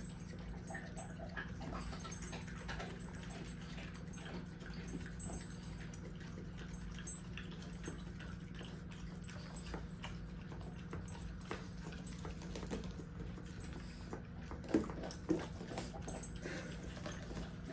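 A dog licking and lapping at a cup of ice cream: soft, irregular wet clicks from the tongue, with two sharper knocks near the end.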